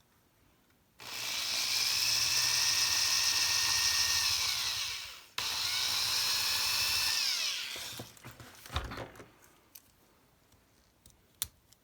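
Power drill with a 9/64-inch bit drilling into a Hot Wheels toy car to take it apart, running in two bursts of about four and two and a half seconds, each winding down in pitch as it stops. A few small clicks and knocks follow as the car is handled.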